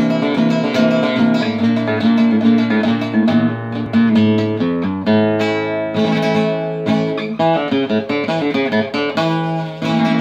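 A 1954 José Ramírez flamenco guitar played solo with the fingers: a continuous run of plucked notes and chords.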